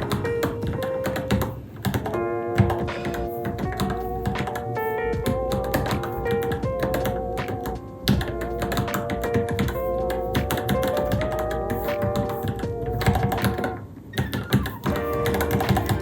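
Typing on a Varmilo Minilo mechanical keyboard: a steady run of quick key clicks. Background music with a melody plays over it.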